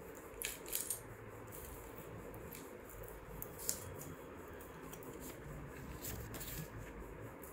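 Faint handling noise: a few scattered soft clicks and rustles over a low, steady background rumble.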